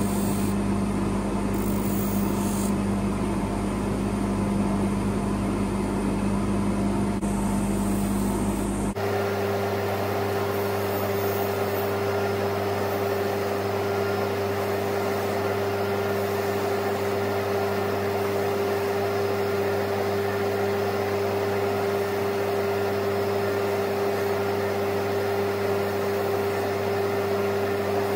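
Bench polishing motor running steadily, its mop buffing a watch case held against it. The hum has a strong steady tone that jumps abruptly to a higher tone about nine seconds in.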